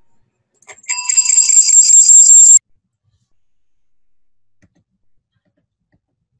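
An electronic alarm sounding: a loud, high-pitched, rapidly pulsing ring that starts about a second in, lasts under two seconds and cuts off suddenly.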